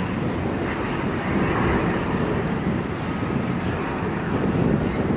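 Steady outdoor rumbling noise with no distinct events.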